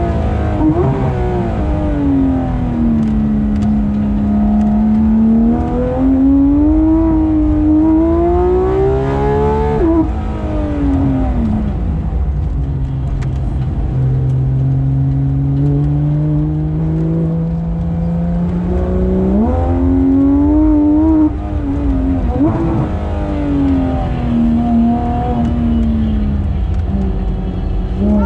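Porsche 991.2 GT3 RS's naturally aspirated flat-six engine under hard driving, its note climbing steadily for several seconds at a time and falling away as the driver lifts. The pitch drops suddenly about ten seconds in and jumps up sharply about twenty seconds in.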